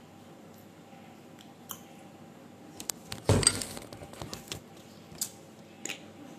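A hand knocks against and adjusts the recording phone, a loud cluster of bumps and rustle about three seconds in, with scattered light clicks and clinks before and after.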